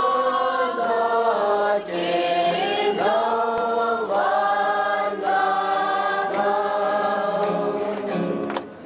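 Several voices singing a slow song together in held notes, phrase after phrase; the singing drops away just before the end.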